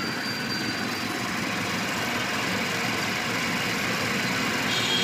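Cotton candy machine running, its spinning head and motor making a steady mechanical hum.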